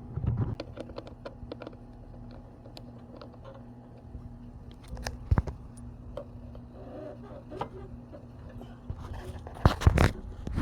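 Hand work on a lawn mower's fuel parts: scattered small clicks, taps and scrapes over a steady low hum, with a sharp knock about five seconds in and a cluster of louder knocks near the end.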